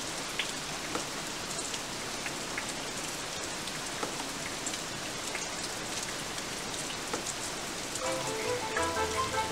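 Steady rain pattering, an even hiss with small scattered drop ticks. Music with sustained notes and a low bass line comes in about eight seconds in.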